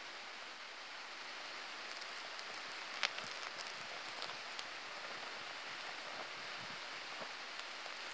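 Small flames of homemade bushcraft firelighters burning with a steady hiss and scattered faint crackles, and one sharper pop about three seconds in.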